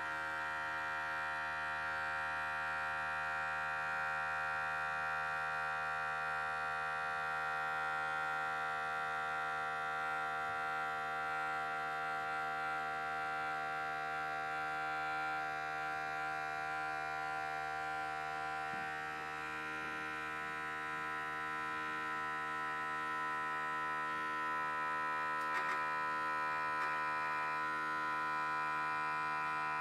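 Battery electric toothbrush's vibration motor buzzing steadily inside an aluminium foil takeaway tray, the vibration that drives the little boat across the water.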